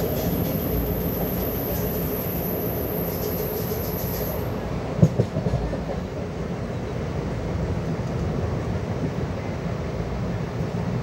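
Passenger train running along the track, heard from an open coach doorway: a steady rumble of wheels on rails, with a couple of sharp knocks about halfway through.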